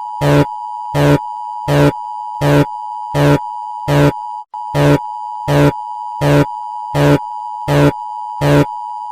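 Emergency alert alarm: a steady two-tone attention signal of the EAS kind, cut through by a harsh buzzing blast that repeats about every three-quarters of a second. The tone breaks off very briefly about four and a half seconds in.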